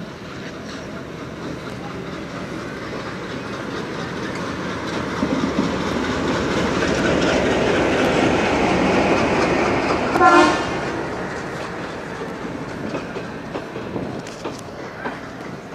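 An Indian Railways train passing, its running noise building up and then fading away. A short horn blast sounds about ten seconds in and is the loudest moment.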